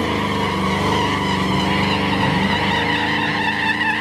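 A car doing a burnout: its engine held at high revs while the spinning tyres squeal steadily, with the revs briefly dipping and climbing back a couple of times.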